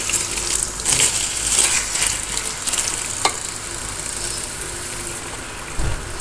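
Diced potatoes and grated eggplant sizzling as they are stir-fried in masala in a steel pan, a wooden spoon scraping through the mixture in a few strokes. A soft thump comes near the end.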